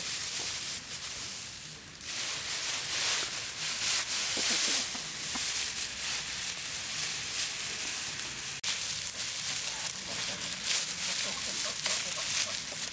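Dry rice straw rustling and crackling as handfuls are pulled from a pile and packed by hand into a bamboo-strip frame.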